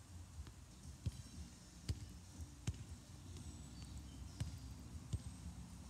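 Soccer ball struck again and again during juggling: a series of short dull thuds, roughly one a second, over a low steady rumble.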